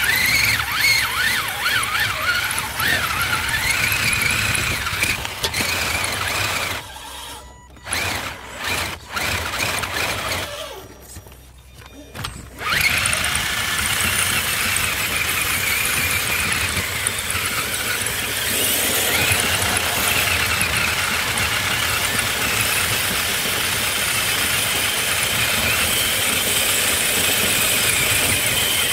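Electric motor and gear drivetrain of an Axial Wraith RC crawler whining, the pitch wavering up and down with the throttle. It drops away twice for a second or two about a third of the way in, then holds a steadier high whine.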